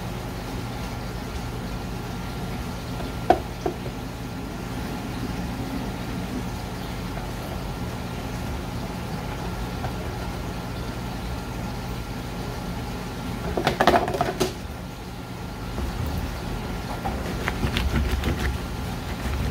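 Steady low machine hum of shop equipment, with a few sharp taps a few seconds in, a louder brief clatter about two-thirds of the way through, and light clicks near the end, from knife work on small gizzard shad on a cutting board.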